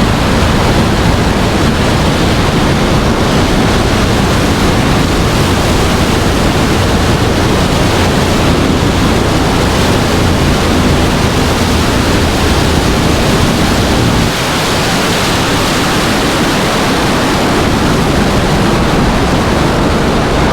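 Heavy wind rushing over a motorcycle rider's helmet microphone at highway speed, with the bike's engine faintly beneath it. About fourteen seconds in, the low rumble drops away.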